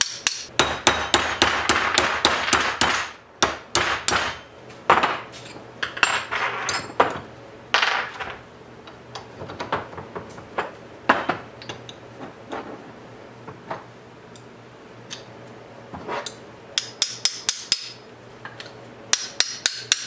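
Small steel hammer tapping a hinge pin on a 1971 Chevy C10 door hinge, metal on metal. A quick run of taps comes at the start, then scattered single blows, then another fast run near the end.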